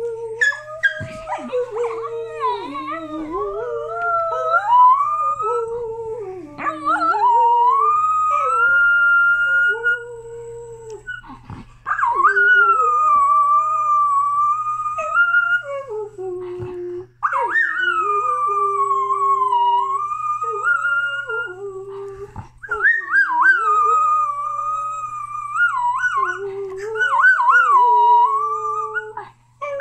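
A dog howling in long, wavering howls of several seconds each, with short breaks, while a man howls along at a lower pitch.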